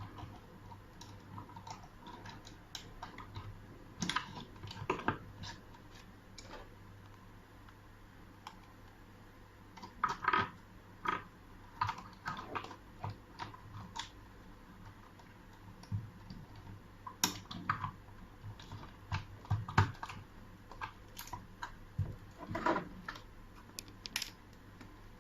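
Scattered small clicks and knocks of a mechanical push-button door lock's parts being handled and fitted, coming irregularly and sometimes in quick little clusters.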